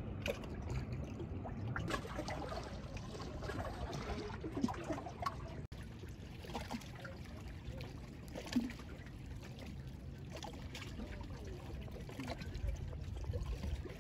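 Small waves lapping and splashing gently at a lake's edge, with a low rumble underneath.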